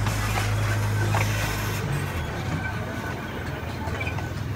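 Zoo train running along its track, heard from an open passenger car: a steady low hum over rolling noise, with the hum fading away about two seconds in.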